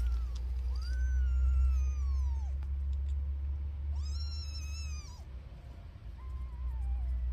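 Newborn kittens mewing: three drawn-out, high, thin calls, each sliding down in pitch at its end, over a low steady rumble.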